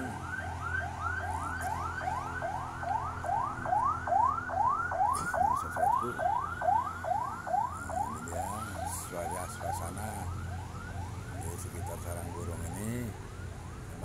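Electronic siren in a fast yelp: rising sweeps, about three a second, that swell louder in the middle and fade again. A low steady hum lies underneath.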